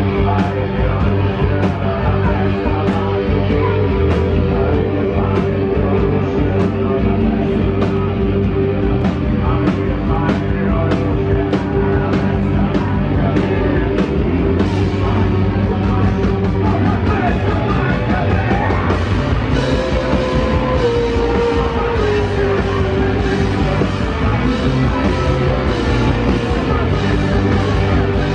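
Rock band playing live: electric guitars and drums, with a steady drum beat and a held guitar note that slides down about two thirds of the way through.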